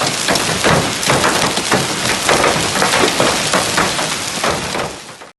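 Heavy storm rain pelting a hard surface: a dense, loud patter with many separate sharp hits. It cuts off suddenly near the end.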